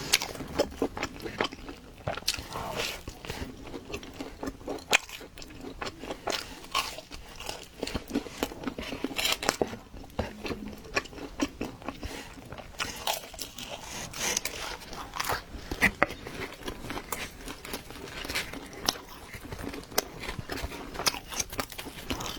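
Close-miked biting and chewing of pizza, with irregular crisp crunches of the crust.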